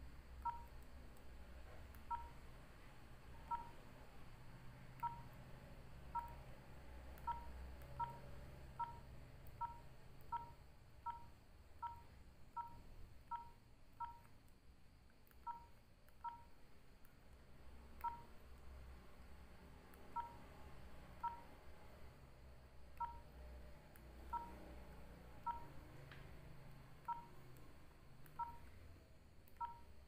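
Nokia 3806 keypad tones: a short, identical beep for each key press while the menus are navigated. The beeps come singly, a second or more apart, and in quick runs of two or three a second.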